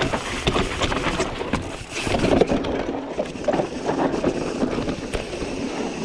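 Mountain bike riding fast down a dirt trail: wind rushing over the microphone and tyres rolling over dirt and rocks, with frequent knocks and rattles from the bike over bumps.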